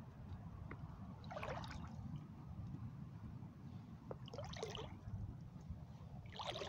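Rubber boots wading through shallow water: a few soft splashes about one and a half, four and a half and six and a half seconds in, over a low steady rumble.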